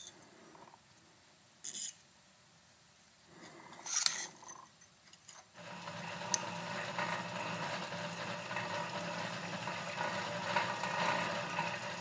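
A few short handling clicks. Then, about five and a half seconds in, a small abrasive cut-off wheel on a 1/8-inch mandrel, turning slowly in a milling machine at about 1,000 RPM, starts grinding steadily into a knife liner to cut the lock bar.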